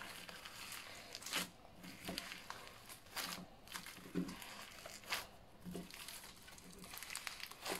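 Fluffy slime mixed with polystyrene foam beads being kneaded and squeezed by hand: a faint rustling with sharp crackles and crunches about once a second, irregularly spaced.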